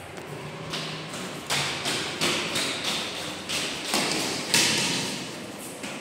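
Children's quad roller skates rolling across a hard tiled floor, with a knock or scuff at each push, roughly every half second to second.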